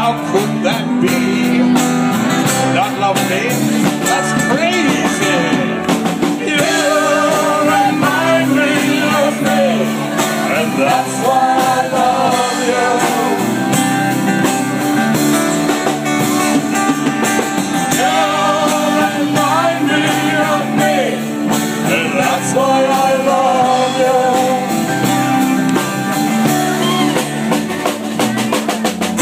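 Live band playing a bluesy rock song, with strummed acoustic guitar under a wavering lead melody.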